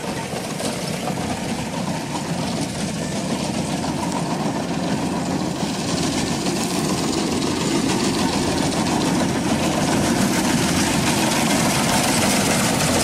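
Rice combine harvester's engine running steadily, growing louder as the machine comes closer.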